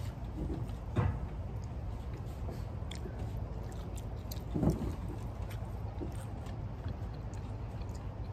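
Close-up eating sounds of a person biting into and chewing a dumpling, with light clicks of metal chopsticks against a plate about a second in, over a steady low background rumble. A short vocal sound is heard about four and a half seconds in.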